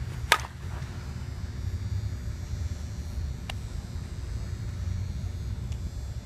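A single sharp, ringing crack of an Easton ASP100 softball bat striking a pitched softball, about a third of a second in, over a steady low rumble.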